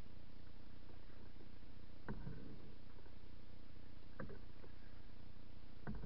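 Three canoe paddle strokes about two seconds apart, each a short sharp splash, over a steady hiss.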